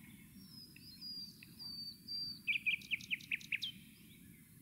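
A songbird singing: a few high, drawn-out whistles, then a quick run of about eight sharp falling notes.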